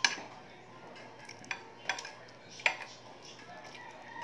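Dried salted fish (buwad) being torn apart by hand and bitten: a few sharp, dry crackles and clicks, the loudest right at the start.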